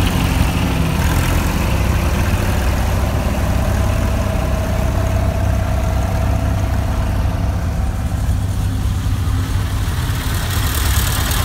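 Vintage farm tractor engines running slowly at low revs, a steady low engine beat with no change in speed.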